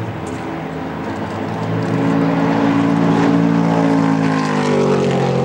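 Stock car's V8 engine running, growing louder about two seconds in, with its pitch dropping near the end.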